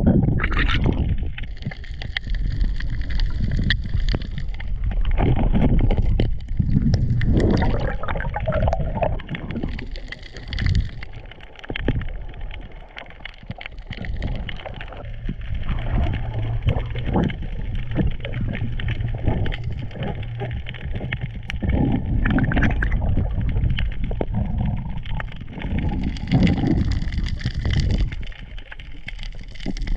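Underwater sound picked up by a diving camera: a muffled rushing and gurgling of water with a dense, steady crackle of short clicks.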